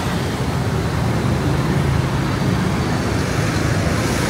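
Steady noise of dense city street traffic, a continuous din of many engines passing.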